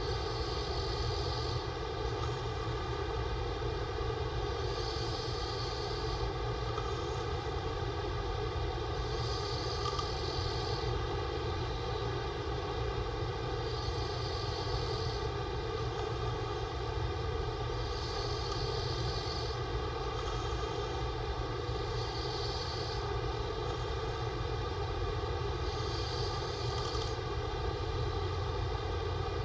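A man snoring with his mouth open, a breath about every four seconds, over a steady background drone.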